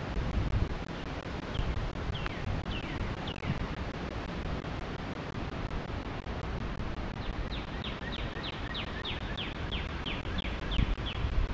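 Wind buffeting the microphone over steady outdoor background noise, while a bird calls: a few separate down-slurred whistles, then about seven seconds in a rapid run of some fifteen descending notes lasting about four seconds.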